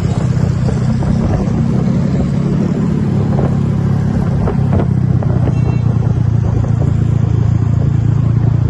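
Bus engine running steadily with a deep, even rumble.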